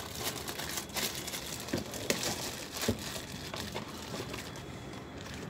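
Clear plastic bag crinkling and rustling around a cylindrical wireless speaker as it is handled, with irregular small clicks and scrapes of a cardboard box being handled, busiest in the first three seconds.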